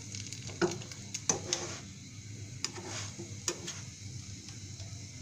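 Egg paratha frying in oil in a nonstick pan with a faint steady sizzle, while a plastic spatula scrapes and taps against the pan four or five times in the first three and a half seconds.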